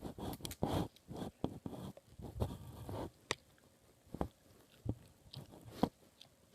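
Irregular clicks, crunches and rustling from small objects being handled close to the microphone, busy for the first three seconds, then a few scattered sharp clicks.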